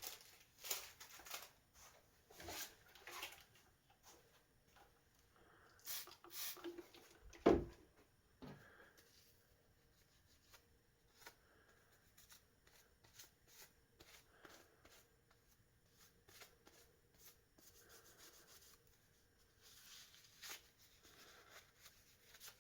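Faint rubbing and handling noises with scattered small clicks as a pair of pliers is wiped clean of grime, with one louder knock about seven and a half seconds in.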